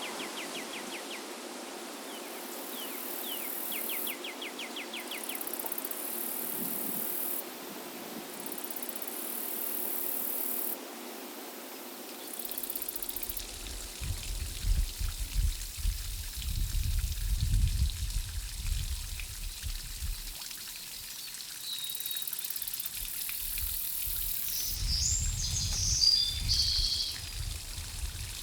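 Water trickling and pouring steadily. From about halfway there is irregular low rumbling, and a few short high chirps come near the end.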